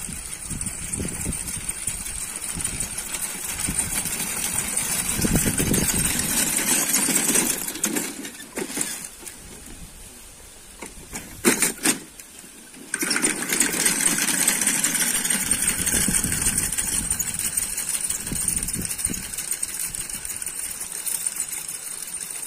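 Manual push-type hand seeder being run along a field: a fast, steady mechanical rattling and clicking. It stops for a few seconds about halfway, with a couple of sharp clicks in the pause, then starts again.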